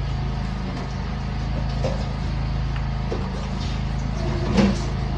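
A steady low engine or motor hum, with a few faint clicks and a brief knock near the end.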